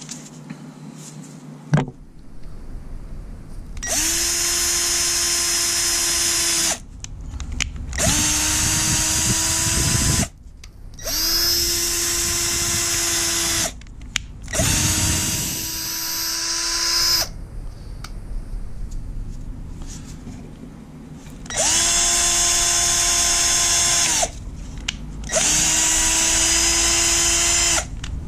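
Small cordless Ridgid drill spinning a thread-cleaning brush in the threaded bolt holes of an engine block, cleaning the threads. It runs in six bursts of two to three seconds each, with a steady whine that spins up at the start of each burst and winds down at the end.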